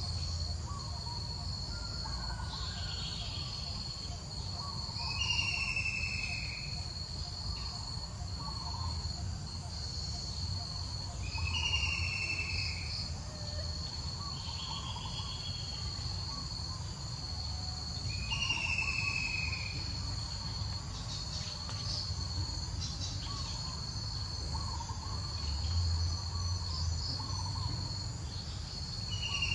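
Insects trilling steadily at a high pitch, with a bird repeating a short falling call about every six or seven seconds, over a low rumble.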